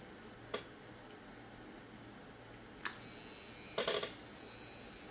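A click about half a second in, then a coil tattoo machine starts up suddenly about three seconds in and buzzes steadily at 9 volts. It runs as if it has no capacitor, sparking at the contact point.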